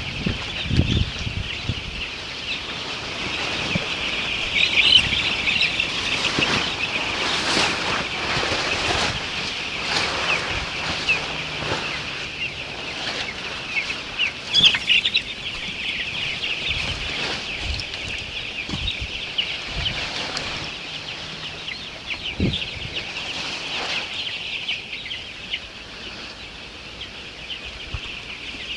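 Chickens calling in a dense, continuous high-pitched chatter, with gusts of strong wind and occasional knocks and rattles.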